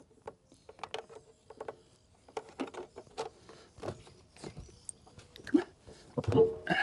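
Transducer cables being handled and laid along a trolling motor's shaft and mount: scattered rubbing, clicks and light knocks, with the loudest knocks near the end.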